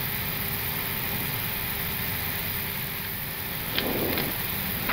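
Steady rushing noise on an Airbus A321neo flight deck while engine number two is being started, with a short louder sound about four seconds in.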